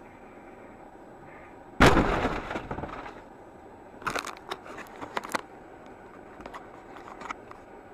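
A vehicle collision: a sudden loud crash with breaking, about two seconds in, dying away over about a second. A couple of seconds later comes a run of sharp cracks and clatters, and then a few fainter ticks.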